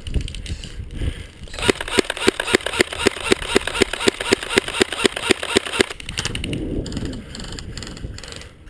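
Airsoft gun firing a rapid string of about twenty shots, roughly five a second, starting about two seconds in and stopping about six seconds in.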